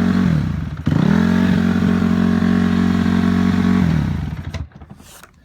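Honda CRF250 four-stroke single-cylinder dirt-bike engine idling steadily. It sags briefly about half a second in, catches again sharply, and is then shut off near the end, winding down to a stop.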